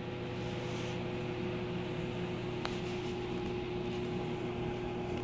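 Steady machine hum with several steady tones, the kind an electric fan or air-conditioning unit makes, with one faint click about two and a half seconds in.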